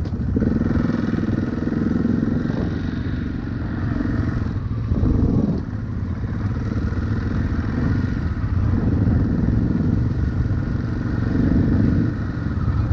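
KTM 500 EXC single-cylinder four-stroke dirt bike engine running as the bike is ridden, the throttle easing off and opening again about five seconds in.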